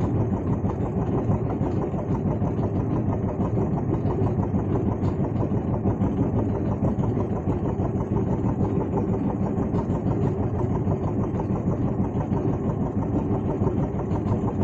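Boat engine running steadily at idle, a constant low pulsing drone.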